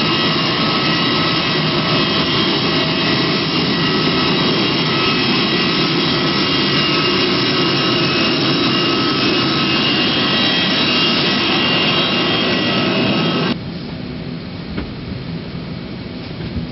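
Loud steady jet turbine whine and rush, several high steady tones over a low rumble. About 13 seconds in it cuts off suddenly to a quieter steady hum of the airliner's cabin air.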